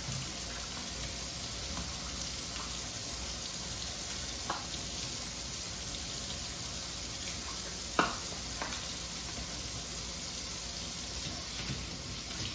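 Kitchen tap running steadily into the sink while dishes are washed by hand, with a light knock about four and a half seconds in and a sharper dish clink about eight seconds in.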